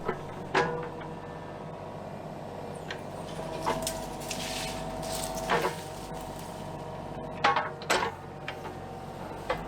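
Kubota KX033-4 mini excavator's diesel engine running steadily while it works, with about half a dozen sharp cracks and knocks scattered through, from brush snapping and the machine working against it.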